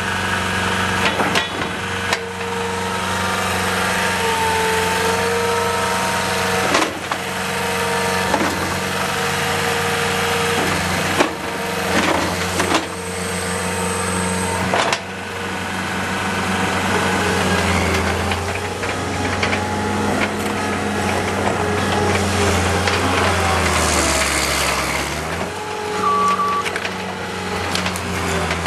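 John Deere 319D compact track loader's diesel engine running steadily, with several sharp clanks from the machine and a brief dip and recovery in engine pitch near the end, as when it takes on load.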